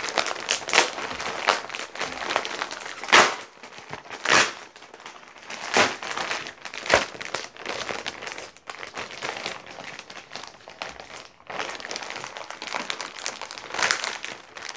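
White plastic mailing bag being torn open and pulled apart by hand: a run of crinkling and crackling broken by several sharp ripping bursts, the loudest about three and four and a half seconds in.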